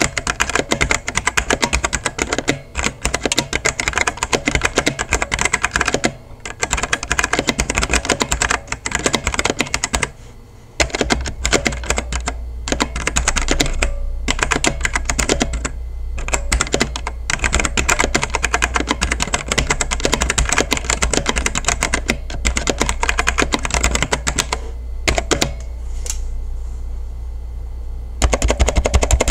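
Typing sound test on a Machinike K500 mechanical keyboard with brown switches: fast, continuous key clacks with a brief pause about ten seconds in and sparser keystrokes near the end. The typing sounds a little hollow and a little pingy, as the plastic case has no foam inside.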